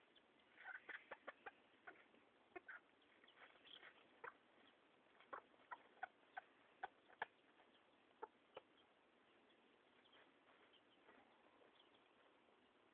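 Silver Sebright hen giving faint, short clucks: a quick run of them at the start and scattered ones until about the ninth second, then quieter.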